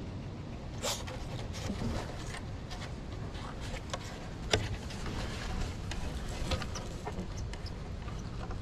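A small dog sniffing and stepping about in dirt between wooden boards: scattered light clicks and scuffs, one sharper click about halfway through, over a steady low rumble.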